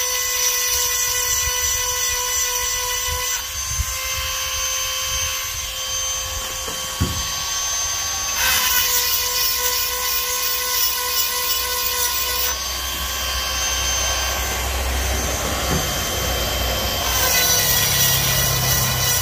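Cordless rotary tool with a small grinding stone running at high speed with a steady high whine, sharpening a chainsaw chain's cutter tooth. Several times the whine dips a little and a rasping grinding hiss joins it as the stone bears on the tooth, then eases off.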